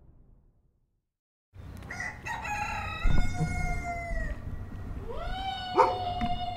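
Rooster crowing twice, two long cock-a-doodle-doos, over a low barnyard background noise that starts about a second and a half in.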